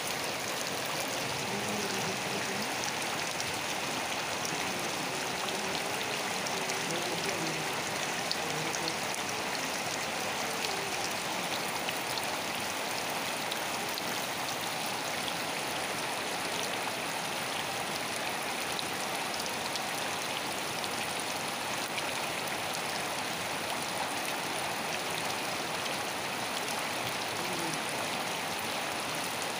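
Steady rain falling, an even hiss of drops that holds constant with no gusts or breaks.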